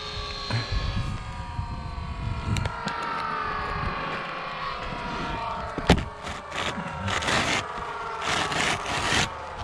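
Asphalt T-lock shingles being handled and slid into place on a roof: a sharp knock about six seconds in, then several bursts of scraping. Under it in the first half, a distant engine hum falls slowly in pitch as a vehicle passes.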